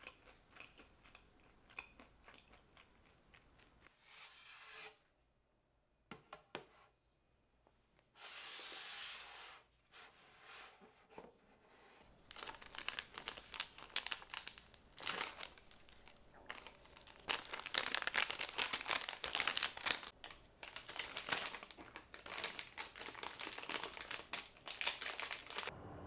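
Thin clear plastic bags crinkling and crackling as they are handled and folded around small baked goods. The crackling is dense and continuous through the second half, after quieter handling noises with a few faint clicks.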